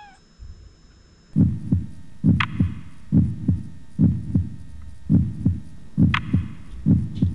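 Heartbeat sound effect: paired deep thumps, lub-dub, about once a second, starting about a second and a half in. Two brief sharper high sounds are laid over it.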